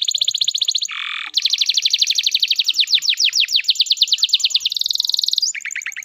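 Domestic canary singing a long, continuous run of fast trills, each a rapid string of identical high notes. There is a brief harsh rasping note about a second in, and the song shifts to a slower, lower trill near the end.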